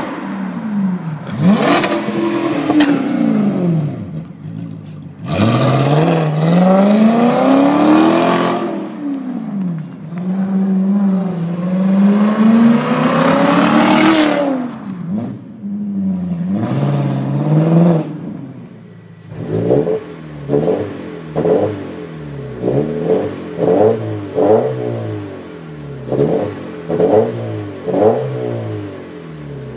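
Straight-piped 2005 BMW 645i (E63) V8 exhaust revving in long climbs and drops, the engine note rising and falling several times. About two-thirds of the way in, the sound changes to a 2013 Subaru BRZ flat-four with a Nameless performance exhaust, blipped in short sharp revs about once a second.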